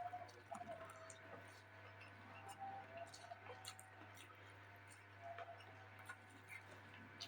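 Quiet eating sounds: chewing with scattered small mouth clicks and smacks, irregularly spaced, over a steady low hum.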